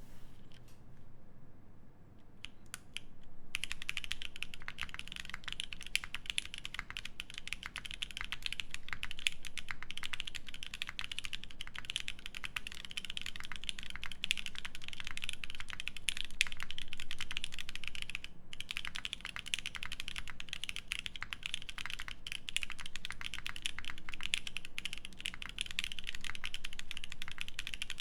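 Typing on an Aurora Input Series 65 mechanical keyboard with lubed Boba U4T tactile switches, an FR4 plate and GMK keycaps. A few separate keystrokes come first, then fast continuous typing from about three and a half seconds in, with a brief break about two-thirds of the way through.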